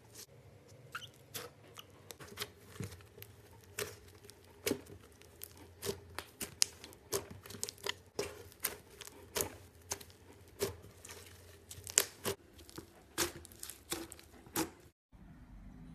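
Butter slime being squeezed and poked by hand, making a run of irregular sticky clicks and pops, a few every second.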